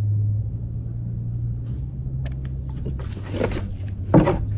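A steady low rumble, then, from about two seconds in, clicks and water splashing as a crab-trap line is hauled up by hand over the side of a kayak, with a sharp knock just after four seconds.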